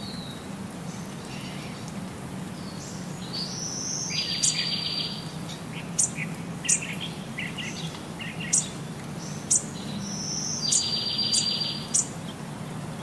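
High, bird-like chirping calls with two short buzzy trills and several sharp clicks. The pattern repeats almost exactly about six and a half seconds apart, like a looped recording, over a steady low hum.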